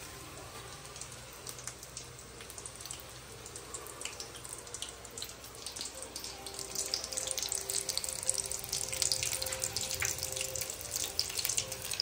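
Breaded fish fingers deep-frying in hot oil in an iron kadai: a steady crackling sizzle that grows louder and busier about halfway through, as another piece is lowered into the oil.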